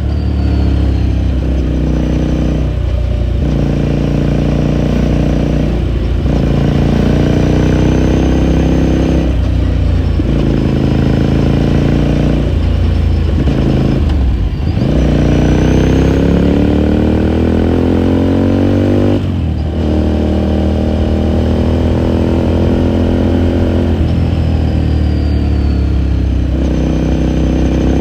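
2018 Ducati Scrambler Sixty2's air-cooled L-twin running under way. Its revs climb and dip briefly again and again, as at gear changes, with one longer steady rise about halfway through.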